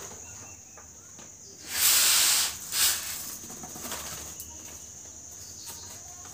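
Crisp fried moong dal poured off newspaper into a bowl: a short rattling hiss about two seconds in, then a briefer second pour just after.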